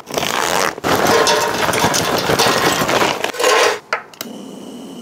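Charcoal being poured into a metal chimney starter: a dense clatter that breaks off briefly about a second in and stops a little before the end, leaving a quieter steady sound.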